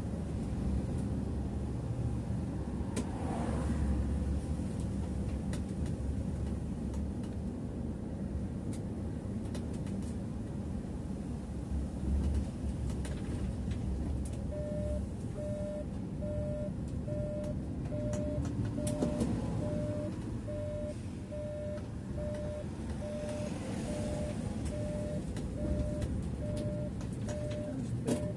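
Steady low engine and road rumble heard from the driver's seat of a Mercedes-Benz bus on the move. About halfway through, the turn-signal indicator starts beeping evenly, roughly three beeps every two seconds, as the bus nears a roundabout.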